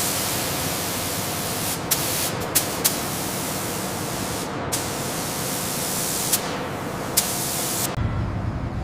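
Paint spray gun hissing steadily as anti-fouling paint is sprayed onto a hull, with a few short clicks and a brief break about four and a half seconds in. Near the end the hiss stops, giving way to a low hum.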